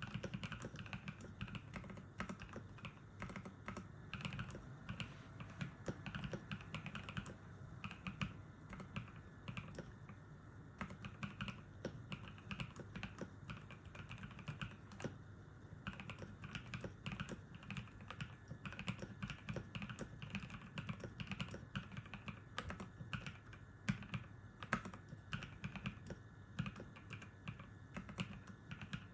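Typing on a Cyberboard mechanical keyboard with Novelkeys x Kailh Cream linear switches lubed with Krytox 205 g0, milk keycaps and Durock stabilizers: a steady stream of keystrokes with a few brief lulls.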